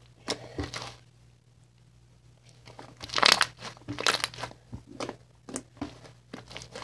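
Fluffy white diaper cloud slime being squished, pressed and stretched by hand, giving a run of short, irregular noisy bursts, the loudest about three seconds in.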